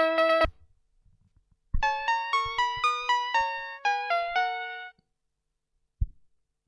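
2002 VTech Schlummerschnuffi toy playing electronic keyboard-like melodies: one tune cuts off about half a second in, and after a short pause another quick run of single notes plays and stops just before 5 seconds. A single low thump follows about a second later.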